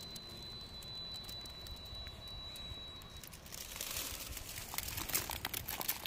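Footsteps crunching and crackling over dry vegetation and stony ground, starting about halfway through after a quiet stretch. A thin, steady high tone sounds faintly during the quiet part.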